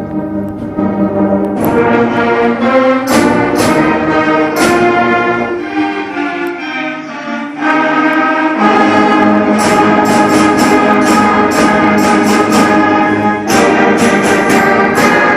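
Beginner student band playing: brass and other wind instruments hold chords over regular drum hits, dropping softer around the middle and coming back louder.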